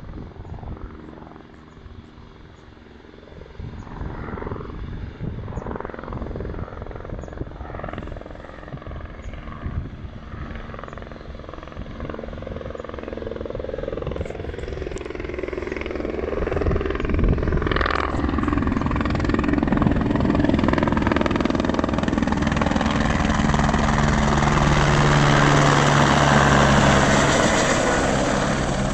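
Helicopter approaching and passing low overhead, its rotor and engine noise growing steadily louder over about twenty seconds and loudest near the end.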